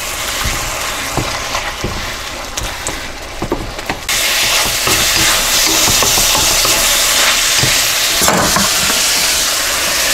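Thin-sliced chip steak sizzling in a hot wok as it is stirred and broken up with a wooden spurtle, with small scrapes of the wood against the pan. The sizzle grows louder and brighter about four seconds in.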